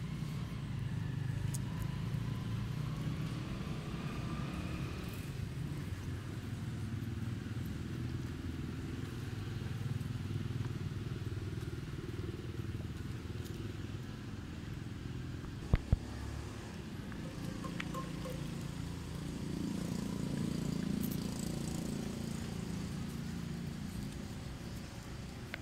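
Low rumble of motor traffic, swelling and fading a few times, with two sharp clicks a little past halfway through.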